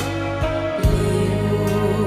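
Instrumental passage of a slow, tender Chinese pop ballad: held bass notes under a wavering lead melody, with a light percussion hit a little under a second in.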